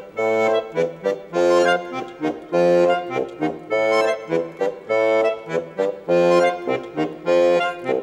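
Accordion playing rhythmic chords, a long chord and a short one repeating about every second and a quarter.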